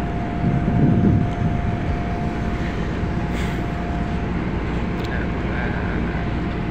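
Tugboat's diesel engines running steadily while it pushes against a ship, heard on board as a constant low drone with a steady whine over it; the drone swells briefly about a second in.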